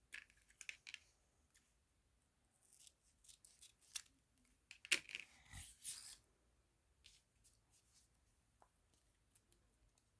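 Quiet, scattered crisp clicks and short rustling snips of small objects being handled, busiest about halfway through.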